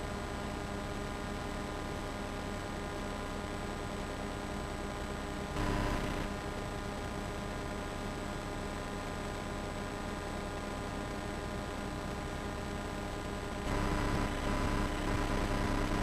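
Steady electrical hum and hiss from an old videotape recording. The noise swells briefly about five and a half seconds in and again for the last couple of seconds.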